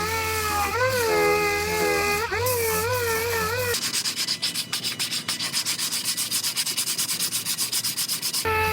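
Power sander working on car-body sheet metal: a whine that wavers in pitch as it is pressed on, then from about four seconds in a fast, even rasping stroke.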